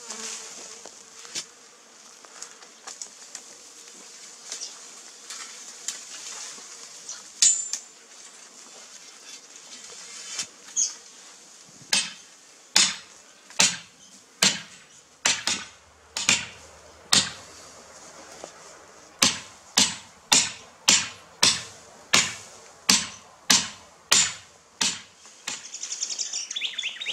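Hammer blows on the top of a steel star picket (fence post), driving it into the ground: a few scattered blows, then from nearly halfway in a steady run of blows a little under one a second.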